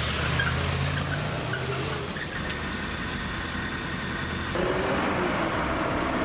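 Street traffic: a pickup truck's engine running as it drives close by, then car engine and road noise. The sound changes abruptly about two seconds in and again about four and a half seconds in.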